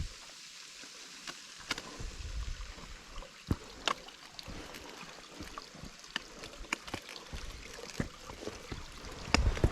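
Irregular footsteps, scuffs and knocks of someone clambering over rock and leaf litter, with a few low thumps of the camera being handled, over the steady hiss of a small waterfall cascade. A loud cluster of knocks comes near the end.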